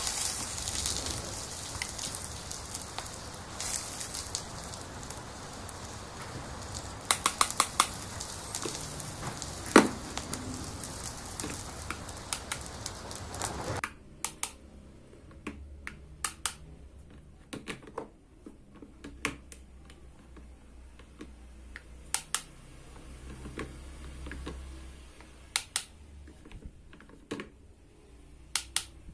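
A steady hiss from the steaming toy cooking pot, with a few sharp clicks, cuts off suddenly about halfway. Then come sparse light clicks and taps of hard plastic toy tomatoes and a plastic spoon knocking on a small plastic plate.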